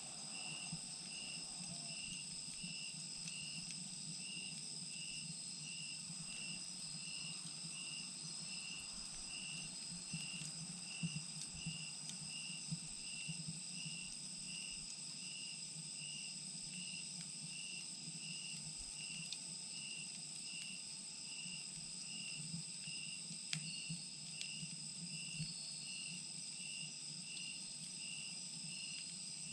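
Insects chirping steadily: a continuous high trill, plus another insect's regular chirp a little over once a second. Occasional sharp crackles come from a wood fire burning in a chimenea.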